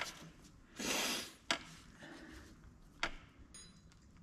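Hand tools working a seized screw in a bracket at the front of a Renault J7R engine: a brief scraping rub about a second in, then two sharp metal clicks.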